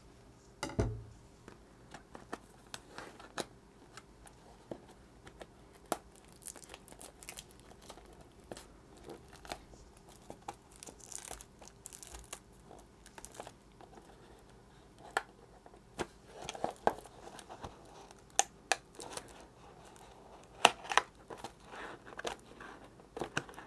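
Plastic shrink-wrap being peeled and torn off a cardboard software box, giving irregular crinkling and crackling with small clicks. There is a single thump on the table about a second in.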